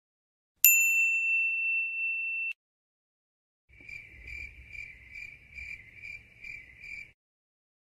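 A single high ding-like tone that starts suddenly, holds for about two seconds and cuts off, then crickets chirping: about eight short chirps, one every half second or so, over a faint low rumble.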